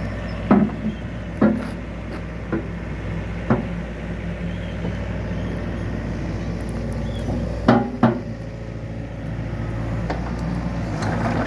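Wacker Neuson compact excavator's diesel engine running steadily, with about six sharp knocks: four spaced through the first few seconds and two close together about two-thirds of the way in.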